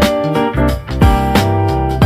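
Background music: an upbeat song with keyboard and a steady drum beat.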